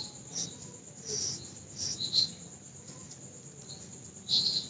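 Graphite pencil sketching on drawing paper: short, irregular scratching strokes.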